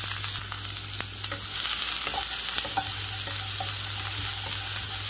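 Chopped onions and green chillies sizzling in hot oil in a nonstick kadhai, with a wooden spatula scraping as it stirs them. The sizzle is a steady hiss.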